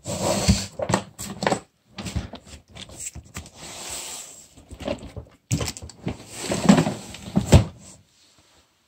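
Large cardboard box being handled and turned over: scraping and rustling with several sharp knocks, the sharpest about two-thirds of the way through.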